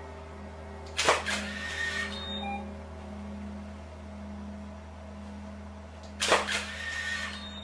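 Large sand-covered metal plate struck twice with a rubber-ball mallet, about five seconds apart; each hit is a sharp crash that rings on for about a second. A steady low hum runs underneath.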